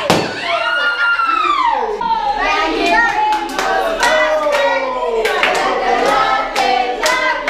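A group of people singing together with rhythmic hand clapping. It opens with a long high falling squeal, and the claps come steadily from a few seconds in.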